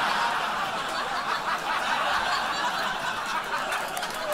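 Audience laughter from a crowd, a big steady wave that eases off a little toward the end.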